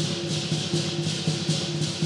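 Lion dance accompaniment: a big drum beating with clashing cymbals in a fast, steady rhythm.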